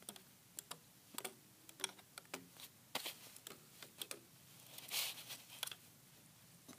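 Rubber loom bands snapping and slipping off the pegs of a plastic Crazy Loom as the finished chain is pulled off, making irregular light clicks. There is a brief rustle about five seconds in.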